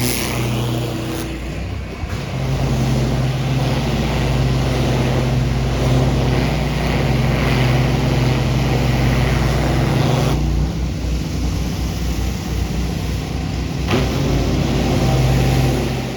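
An engine running steadily with a continuous hiss over it; its low tone changes about ten seconds in.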